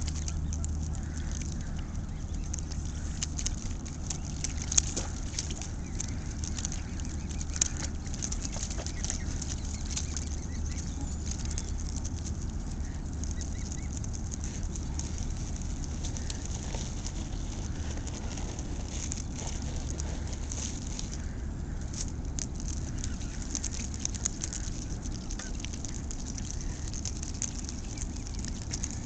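Canada geese feeding in the shallows at the water's edge: scattered small splashes and clicks from their paddling and dabbling, over a steady low rumble.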